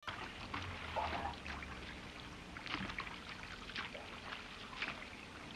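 Bath water sloshing softly in a foam-filled tub, with small irregular splashes and drips.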